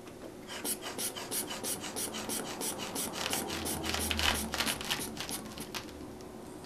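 Rubber inflation bulb of a manual blood-pressure cuff being squeezed over and over, a quick train of airy puffs about three a second, pumping up the cuff on the arm. The pumping stops near the end.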